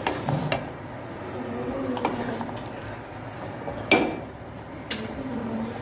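A metal ladle clinking and scraping against a steel pot while simmering milk is stirred. There are several separate sharp clinks, the loudest about four seconds in.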